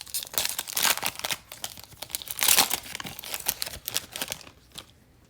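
The wrapper of an Absolute football trading-card pack being torn open and crinkled by hand, a dense crackling that is loudest about halfway through and dies away about four and a half seconds in.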